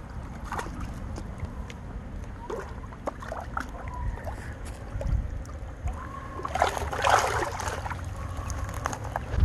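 Hooked peacock bass splashing and thrashing in shallow water at the bank as it is landed, in scattered small splashes with a bigger burst of splashing about seven seconds in. Wind rumbles on the microphone throughout.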